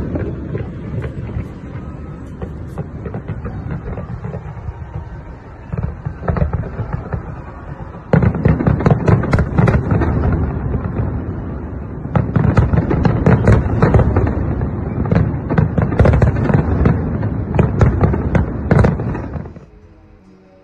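Aerial fireworks display: a fast barrage of shells bursting in bangs and crackles, growing dense from about eight seconds in. It cuts off suddenly near the end.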